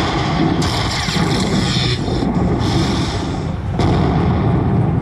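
Chica Bonita slot machine playing its win celebration effects as the win meter counts up after the free spins: a loud, dense rumble with a hiss over it.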